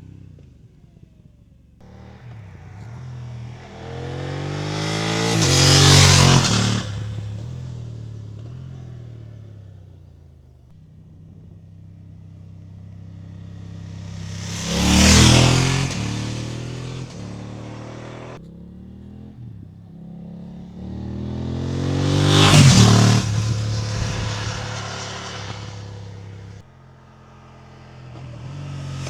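A BMW F900R motorcycle with a parallel-twin engine riding past, three times. Each pass swells to a peak, then its engine note drops in pitch and fades as it goes away. A fourth pass is building near the end.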